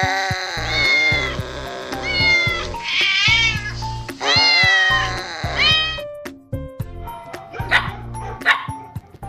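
A cat meowing five or six times over background music. Then, after about six seconds, a small dog, a Shih Tzu, gives two or three short, sharp barks near the end.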